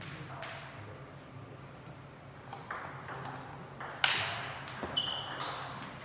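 Table tennis rally: the ball clicking sharply off bats and table, several times over the first four seconds, ending in a loud forehand smash about four seconds in. A brief high squeak follows a second later.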